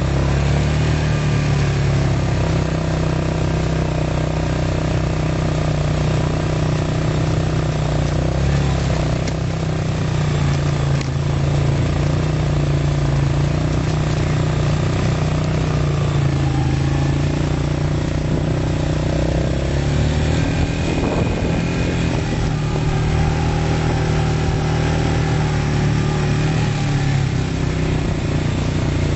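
Quad bike engine running steadily under way, its pitch shifting up and down a little now and then.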